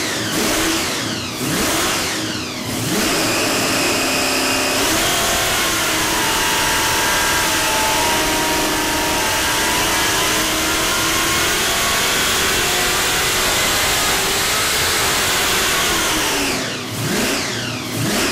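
Supercharged 540 cubic inch big-block Chevrolet V8 with a belt-driven roots blower, running on an engine dyno. It is revved in a few quick blips and then held in a long steady dyno pull from about five seconds in to about sixteen. After that the revs drop and it is blipped again.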